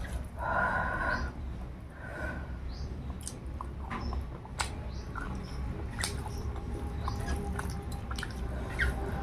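Close-up eating sounds: scattered small wet clicks and smacks of chewing and lips over a low steady hum. A short pitched sound comes about half a second in.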